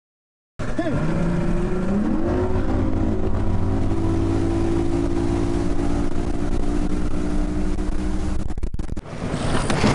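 Bass boat's outboard motor running at speed, its pitch climbing over the first couple of seconds and then holding steady, with wind and hull noise. It starts about half a second in and breaks off briefly near the end.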